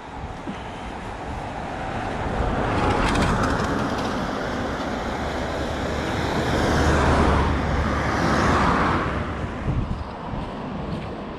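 Road traffic passing close by: a rushing noise of tyres and engines swells, with one louder pass about three seconds in and a second, louder one around seven to nine seconds in, then fades away.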